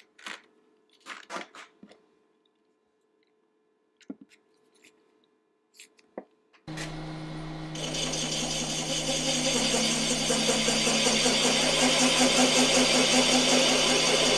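A few faint clicks of plastic cable glands being sorted in a plastic organizer box. About seven seconds in, a milling machine's motor starts suddenly, and a second later its cutter starts boring through thin sheet metal. It carries on as a steady hum with a grinding, hissing cut, enlarging the hole for a larger cable gland.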